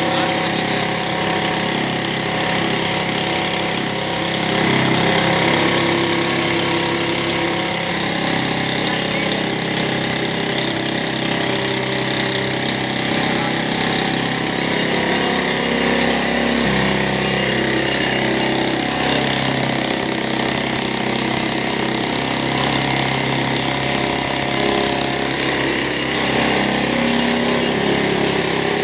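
Motorcycle engine running steadily, belt-driving a piston air compressor that pumps air into its tank. The engine note shifts slightly about 16 seconds in.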